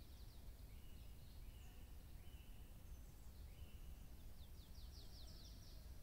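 Small woodland songbirds singing faintly: a few short, level whistled notes in the first few seconds, then a fast trill about a second and a half long near the end, over a low steady background rumble.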